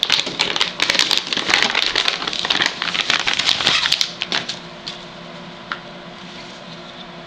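Clear plastic wrapping crinkling and crackling as a wrapped machete is lifted out of a cardboard box and handled. The crackling is dense for about four seconds, then stops, apart from a couple of single clicks.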